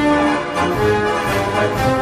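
Orchestral background music with brass, held notes over a regular beat of about two strokes a second.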